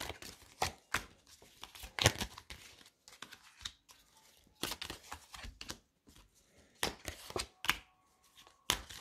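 Tarot cards being shuffled and dealt onto a table: irregular short snaps, flicks and slaps of card stock, coming in small clusters.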